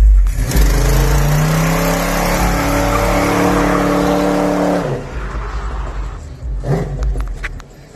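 A car doing a burnout: the engine revs hard and climbs in pitch while the rear tires screech, for about four seconds, cutting off about five seconds in. A quieter low rumble and a few clicks follow.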